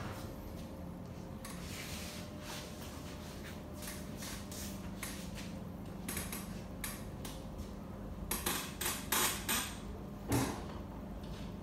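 Hands striking and patting a body in a massage: a run of short, sharp slaps and taps, coming thick and fast a little over two-thirds of the way through, with one heavier slap shortly after.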